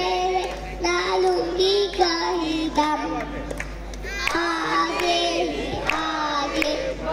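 A young girl singing solo into a microphone, holding long notes that waver, with short breaks between phrases.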